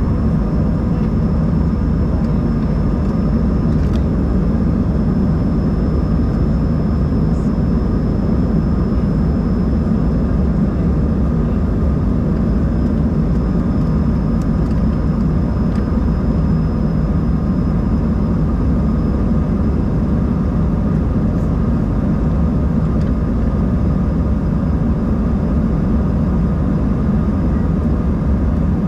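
Steady cabin noise of an Embraer 190-E2 airliner: a deep, even drone of its Pratt & Whitney PW1900G geared turbofans and the air around the fuselage, with a faint high whine running through it.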